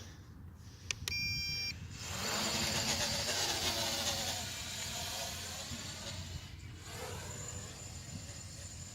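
A click and a short electronic beep about a second in. Then the MJX Bugs 3 quadcopter's brushless motors and propellers spin up into a loud whir whose pitch rises and falls.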